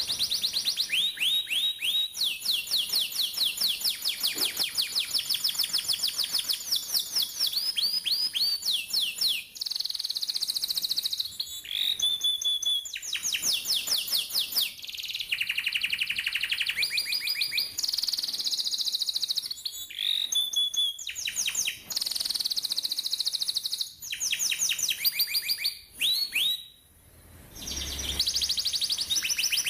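Domestic canary singing a long rolling song: one fast trill of rapidly repeated high notes after another, each run at its own pitch, with a brief pause near the end.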